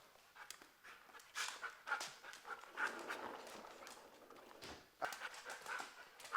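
A dog panting, with scattered light clicks.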